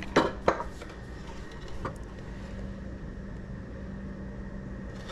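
Steady low machine hum, with loose metal bolts clinking twice near the start and once more about two seconds in.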